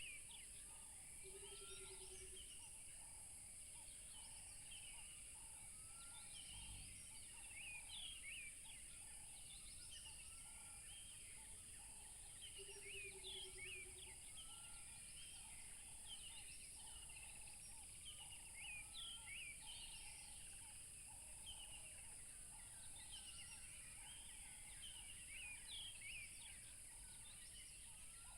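Faint chorus of several birds, with many short overlapping chirps and whistled notes, over a steady high hiss. Twice, a low rapid trill lasting about a second.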